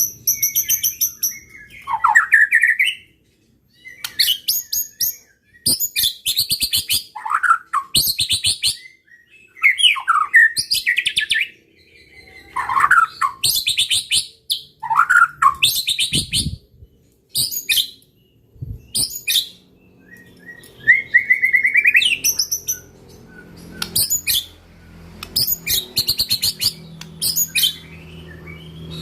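White-rumped shama (murai batu) singing energetically in a varied song. It alternates whistled notes that slide up and down with rapid runs of fast repeated high notes, in short phrases separated by brief pauses.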